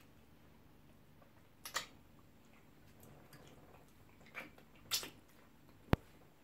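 Close-miked eating sounds of pounded yam with slimy ogbono soup eaten by hand: a few short, wet mouth smacks and slurps a second or more apart over a low steady hum. One sharp click about six seconds in.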